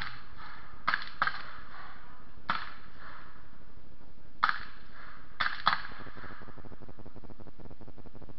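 Black-powder guns fired along a distant firing line: about half a dozen sharp reports at uneven intervals, some close together in pairs, each with a short echoing tail, over a steady hiss.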